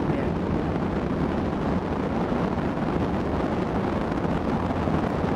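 Wind buffeting the microphone in flight: a steady low rumbling rush of air.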